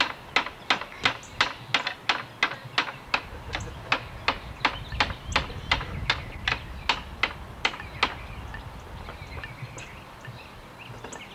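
A small child striking wood scraps with a hammer: steady knocks at about three a second, which die away to a few scattered light taps about eight seconds in.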